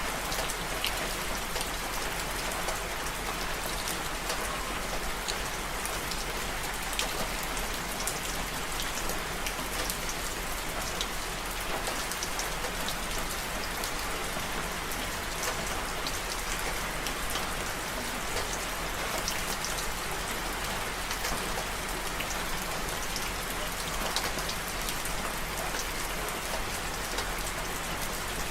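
Steady rain falling, an even hiss dotted with many sharp ticks of individual drops striking close by.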